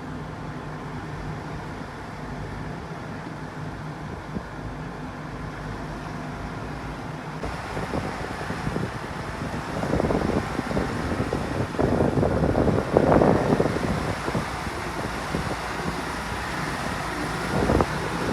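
Diesel engine of heavy earthmoving machinery running with a steady hum. About halfway through it grows louder and rougher, with irregular surges.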